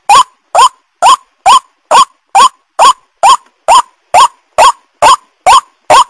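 White-breasted waterhen (ruak-ruak) calls: a short, rising 'kwak' note repeated at an even pace a little over twice a second, played as a lure call to draw waterhens in.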